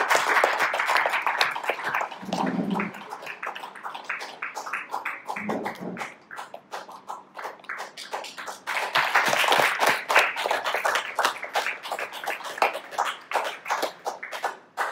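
Audience applauding. The claps are dense at first, thin out to scattered claps midway, swell again about nine seconds in, and cut off suddenly at the end.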